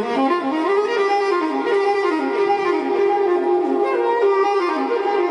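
Background music: a saxophone playing a single melody line that moves up and down in pitch.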